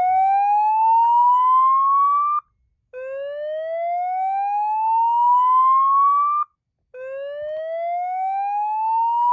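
Whoop alert tone from a Fire-Lite ACC-25/50 voice evacuation panel, played through a Federal Signal 950I loudspeaker. Each whoop is a rising sweep that climbs steadily for about three and a half seconds and cuts off abruptly, with about half a second of silence before the next, repeating.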